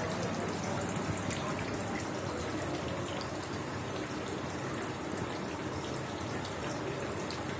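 Steady running water, an even trickling hiss with faint light ticks above it.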